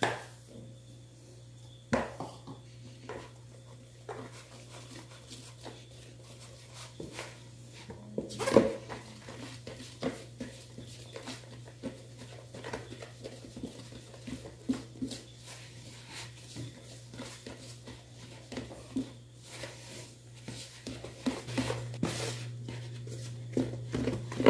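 Flour being mixed into a sticky bread dough in a bowl: light, irregular knocks and scrapes of the utensil against the bowl, with one louder knock about eight seconds in, over a steady low hum.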